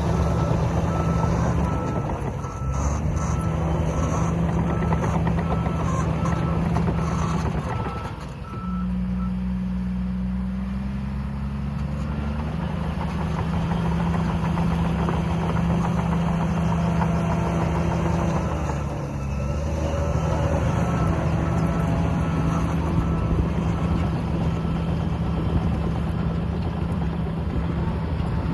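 Shantui DH17C3 bulldozer's diesel engine running steadily. Its reverse alarm beeps for the first seven seconds or so and again through the last third. The engine note dips briefly and shifts pitch about eight seconds in.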